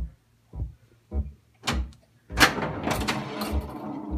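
1982 Bally Space Invaders pinball machine sounding a steady low thumping pulse, a little under twice a second. About halfway through come sharp clacks, then a continuous rattling clatter from the playfield.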